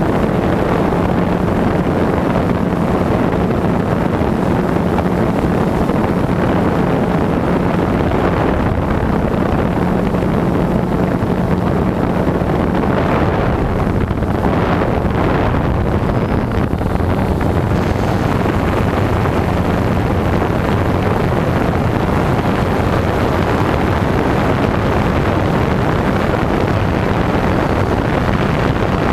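DJI Phantom quadcopter's motors and propellers, heard from the GoPro mounted on the drone: a steady buzzing hum with a held low tone, and wind rushing over the microphone, with a few brief swells about halfway through.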